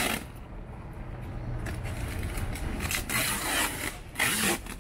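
Scraping and rubbing in several short bursts as a refrigerator padded with cardboard is shifted into place, over a low steady rumble.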